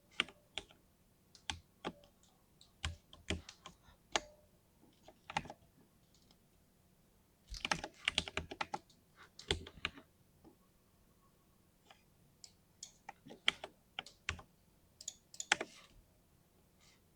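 Typing on a 60% mini mechanical keyboard with lubed linear switches: irregular keystrokes in short bursts with brief pauses, busiest about halfway through and again in the last few seconds.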